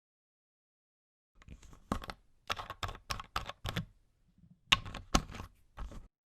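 Two runs of quick, sharp taps or clicks, about three a second, with a short pause between the runs.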